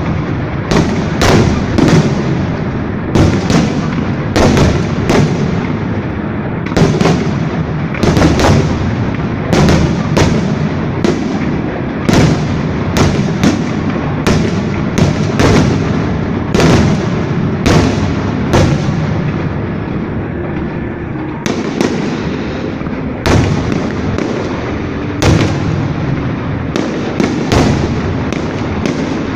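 Fireworks display: a rapid, irregular series of sharp bangs, roughly one every half second to a second, over a continuous rumble and crackle. The bangs thin out briefly past the middle, then pick up again.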